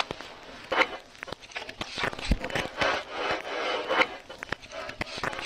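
Scuffs, scrapes and rustles of a person shifting about on a concrete garage floor, with a few sharp knocks, the loudest about two seconds in.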